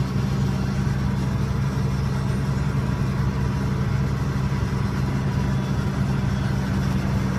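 Logging machine's diesel engine idling steadily, with an even low hum that does not change.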